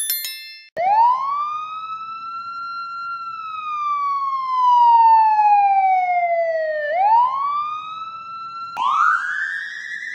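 Police siren wail sound effect: after a brief high ringing tone at the start, the siren rises quickly, holds, falls slowly over several seconds and rises again. Near the end it jumps to a higher, wavering version of the wail.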